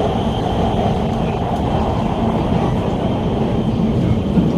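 Guangzhou Metro Line 14 train running, heard from inside the passenger car: a steady rumble of the car and wheels on the rails, with a faint steady high tone above it.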